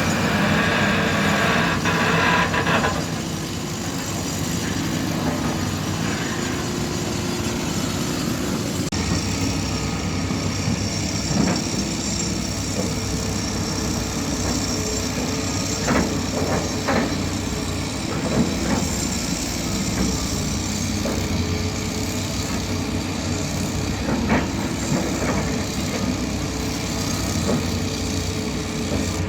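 Diesel engine of a large crawler excavator running steadily under working load, with a stretch of louder work noise in the first few seconds. Several sharp knocks come through later, at about 11, 16, 17, 18 and 24 seconds.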